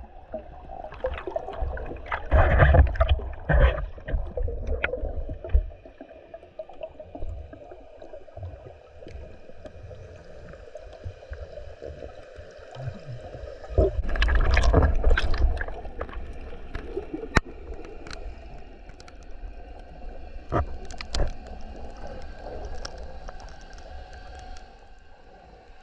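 Scuba diver breathing through a regulator underwater: exhaled bubbles gurgle out in two loud surges, about two seconds in and again about fourteen seconds in, over a fainter steady murmur with scattered clicks.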